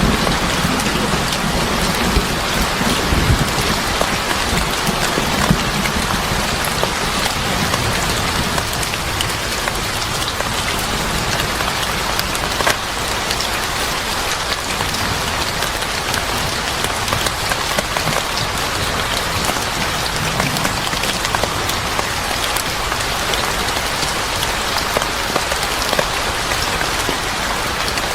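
Steady heavy rain falling and pattering on hard surfaces, with a low rumble of thunder dying away in the first few seconds.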